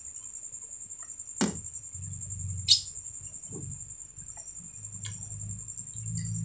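A ladle stirring in an aluminium pot of coconut-milk stew, knocking sharply against the pot twice, about a second and a half and nearly three seconds in, with lighter clinks between. A steady high-pitched trill runs underneath.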